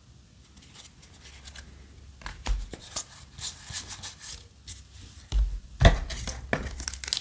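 Yu-Gi-Oh! trading cards being handled: cards slide and scrape against each other in short bursts as a stack is flipped through. Near the end come two soft thumps as the cards are set down and the cardboard booster box is reached into.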